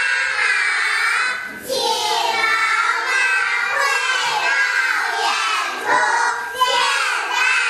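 A group of young children singing loudly together, starting abruptly.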